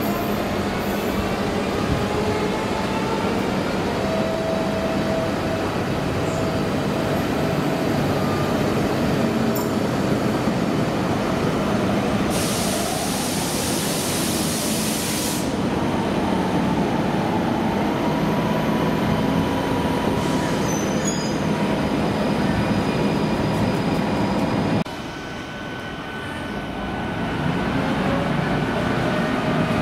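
CP Series 2600 electric locomotive and its carriages rolling slowly into the platform, a steady rumble with faint high tones drifting in pitch. About 12 seconds in there is a hiss lasting about three seconds. About 25 seconds in, as the train comes to a stand, the noise drops suddenly, then builds again.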